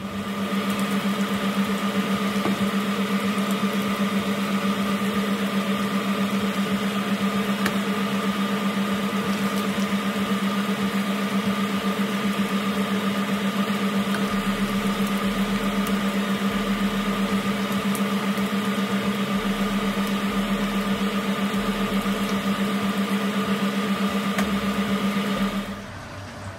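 Chicken pieces deep-frying in a wok of hot oil, a steady sizzle under a constant mechanical hum.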